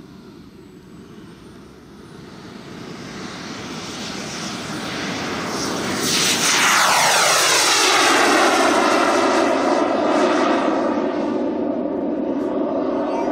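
A model jet's EvoJet 170 turbine running at takeoff power as the Tuono NRG rolls and lifts off. Its whine grows steadily louder as the jet approaches, is loudest about six to eight seconds in as it passes close, then drops in pitch and settles as it climbs away.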